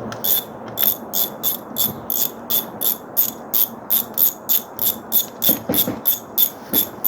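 Ratchet wrench clicking steadily, about four clicks a second, as it is swung back and forth while loosening the handlebar clamp bolts.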